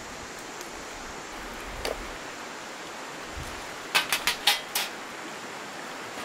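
Steady rush of river rapids, with a quick run of about five sharp snaps about four seconds in: dry twigs broken by hand into kindling for a small twig stove.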